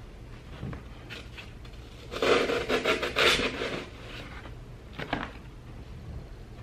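Rustling and scraping as an artificial hydrangea stem with fabric leaves is handled and pushed into floral foam, loudest for about a second and a half in the middle, with a few light taps and clicks before and after.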